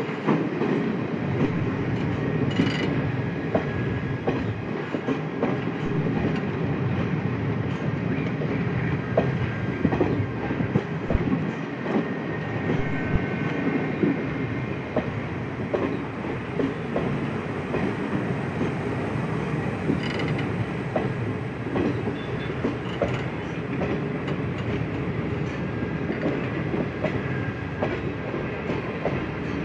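Passenger train rolling past on the track: a steady rumble of wheels with rattling and clicks over rail joints, and a faint wheel squeal at times.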